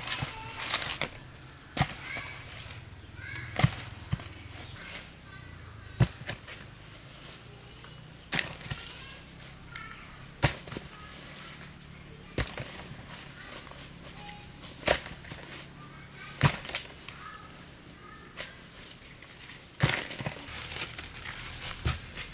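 Sharp knocks or strikes repeating about every two seconds, over an insect's steady high chirping at about two chirps a second, with a few faint bird chirps.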